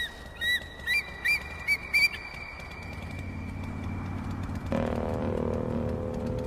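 A bird gives about six short, high chirping calls in quick succession, then a low rumble builds and a steady low drone sets in about two-thirds of the way through.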